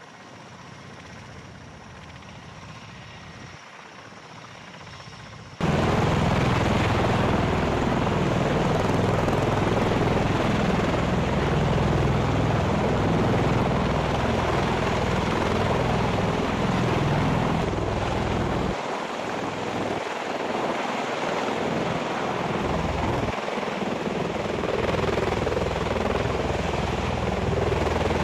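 Military rotorcraft hovering low overhead: loud rotor and downwash noise with a pulsing low rotor beat. It comes in abruptly about five and a half seconds in, after a quieter stretch of more distant aircraft sound.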